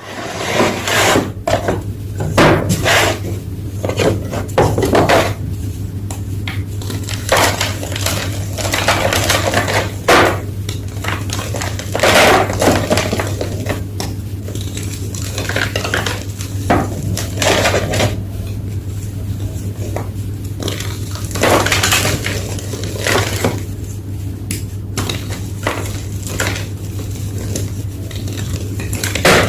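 Blocks of gym chalk crushed and crumbled, a continuous run of irregular crunches, some louder than others, over a steady low hum.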